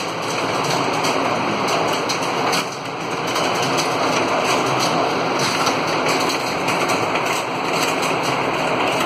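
Many people typing at once on keyboards in an exam room, a dense, steady clatter of keystrokes that runs together like rain.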